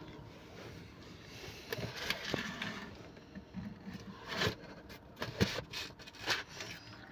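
Cardboard boxes of dates being handled on a cloth car seat: irregular scraping, rustling and light knocks as the boxes are opened, lifted and slid about.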